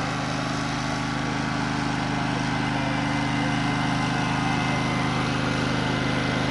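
An engine running steadily at a constant speed, a low even hum with no revving.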